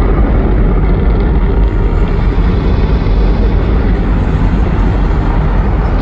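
Loud, steady rumble of many rockets lifting off, a film sound effect played over a large venue's sound system.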